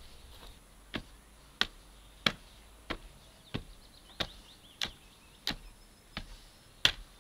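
A tamping bar striking the soil packed around a newly set wooden fence post: about ten sharp, regular knocks, roughly one every two-thirds of a second, starting about a second in.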